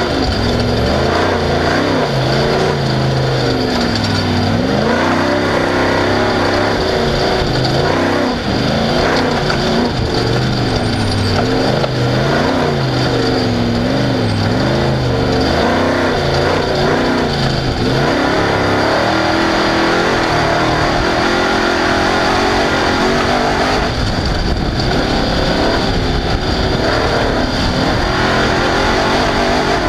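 Off-road race car engine running hard under load, its pitch swinging quickly up and down with throttle for the first half, then holding steadier and higher toward the end.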